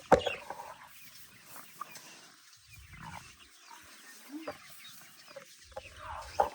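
Chickens clucking softly on and off, with a single sharp knock just after the start.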